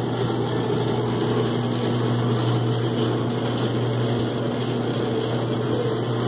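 Motorized intaglio etching press (a Vicente Terra press) running: its electric drive hums steadily as it carries the bed and felt blanket under the roller.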